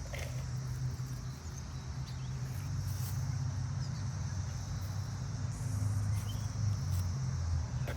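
Outdoor ambience: a steady high insect drone over a low, uneven rumble, with a few faint clicks.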